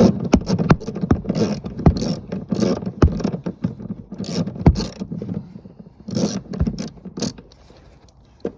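Socket wrench backing out a car seat's mounting bolt: irregular clicks, knocks and scraping of metal tool on bolt and seat rail, dying down near the end as the bolt comes free.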